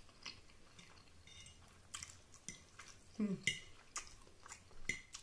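Eating sounds of spaghetti: a fork clicking and scraping on a plate and wet chewing and slurping mouth sounds, in scattered short clicks. A brief low hum of voice comes about three seconds in.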